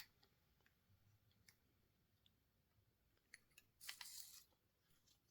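Near silence, broken by a few faint clicks and one brief scraping rustle about four seconds in: a milled test part and measuring tool being handled.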